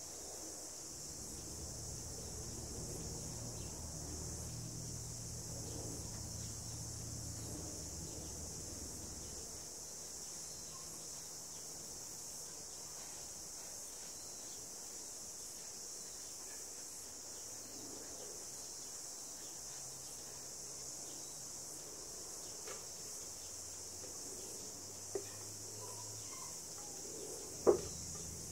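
A steady, high-pitched insect chorus, with a faint low hum coming and going beneath it. A single sharp knock sounds near the end.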